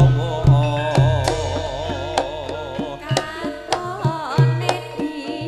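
Javanese gamelan music accompanying a tayub dance. A woman's voice sings a wavering, ornamented line through roughly the first half over sustained ringing tones. Low kendang drum strokes and sharp struck hits keep the rhythm throughout.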